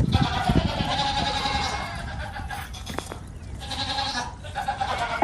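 Goat bleating: one long bleat, then a shorter second one about four seconds in.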